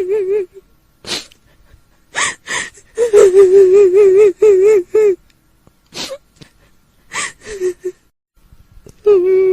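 A woman's voice performing the crying of a kuntilanak, the Indonesian female ghost. Short, sharp, gasping sobs alternate with a long, high, wavering wail in the middle, and another wail begins near the end.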